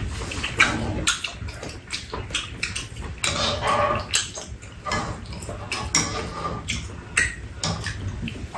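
Metal chopsticks clicking and scraping against a frying pan and bowls, with wet chewing and slurping of stir-fried octopus.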